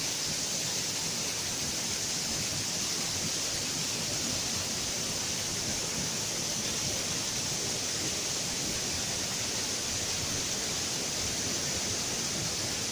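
Waterfalls rushing in a steady, unbroken roar of falling water close by.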